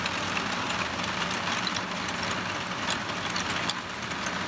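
Rain falling on a sailboat's cabin top and windows: a steady hiss dotted with many small drop ticks, over a low steady hum.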